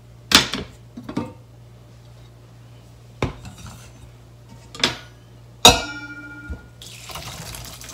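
A stainless steel pot and its glass lid knock several times as they are handled on a metal trivet. The loudest knock, about two-thirds through, is a clink that rings. Near the end, cooked azuki beans and their cooking water start to pour into a stainless mesh strainer with a soft rushing splash.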